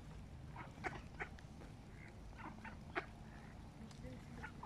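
Mallard ducks giving scattered short quacks, a few louder ones about a second in and at three seconds, over a steady low outdoor rumble.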